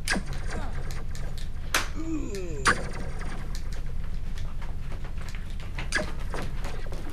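Video game sound effects: scattered sharp clicks and knocks, with a cluster of falling electronic chirps about two to three seconds in, over a steady low hum.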